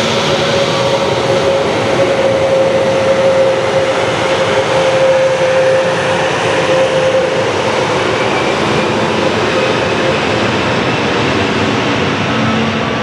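Airbus A320neo's Pratt & Whitney geared turbofan engines running loud and steady: a broad jet rush with a clear whine that sags slightly in pitch and comes back.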